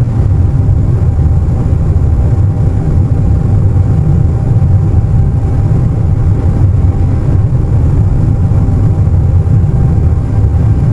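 Airliner cabin noise at cruise: a steady, loud, deep rumble with a faint high steady whine running under it.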